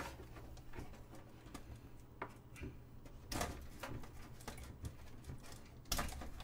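A few faint clicks and knocks of a computer case's side panel being worked loose and lifted off, the loudest about six seconds in, over a steady low hum.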